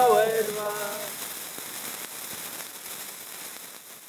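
A song's last sung note dies away about a second in, leaving the steady fizzing crackle of burning sparklers, which fades out near the end.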